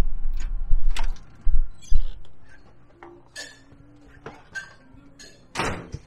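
Storm door latch clicking as the lever handle is turned and the door opens, with wind rumbling on the microphone for the first couple of seconds. Then it is much quieter indoors, with faint short voice-like sounds and a brief rush of noise near the end.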